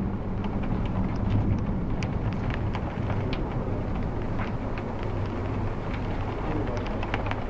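Rain falling during a thunderstorm, heard from behind a window, with scattered drops ticking sharply against the glass over a steady low hum.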